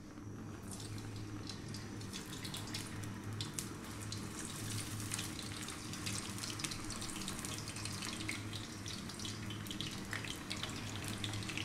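Raw potato strips frying in shallow hot oil in a pan: a steady sizzle full of small crackles and pops, with a steady low electric hum underneath.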